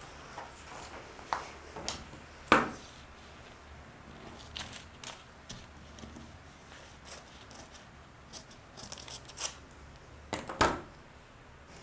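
Scissors snipping through pattern paper, with paper rustling as the cut pieces are handled. Two sharp knocks stand out, one about two and a half seconds in and one near the end.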